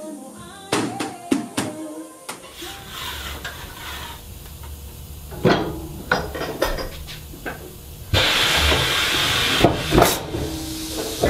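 Sheet-metal squaring shear cutting stainless steel sheet: sharp metal clanks and knocks over a low steady motor hum that sets in about two seconds in. A loud hissing rush starts about eight seconds in, with hard clanks as the cut pieces drop onto the stack.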